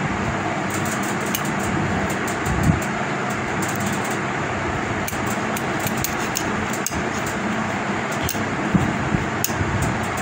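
A steady mechanical hum with scattered light clicks and taps from desoldering work at a CRT TV's flyback transformer pins, where a soldering iron and a spring-loaded desoldering pump are worked against the circuit board.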